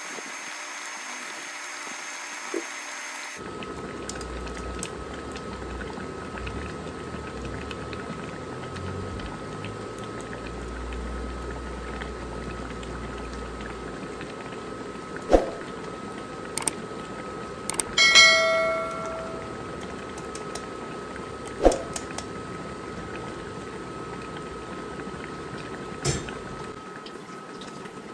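Broth simmering and bubbling in a wok, with a steady thin hum under it. A few sharp knocks are heard, and about two-thirds of the way through there is a single ringing metallic clang that dies away over about a second.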